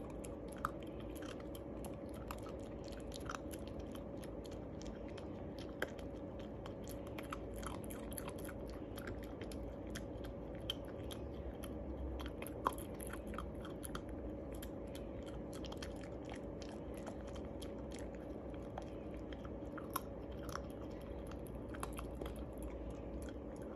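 Shiba Inu chewing a Milk-Bone dog biscuit: a steady run of irregular crisp crunches, with a few louder cracks as pieces break.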